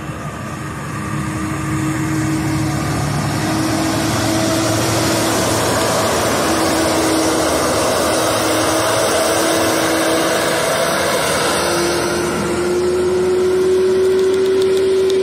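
Brandt road-rail truck, a diesel semi tractor riding the rails on its tires and guide wheels, running past at close range while pulling rail cars: a steady engine drone with a held tone over a constant rolling noise.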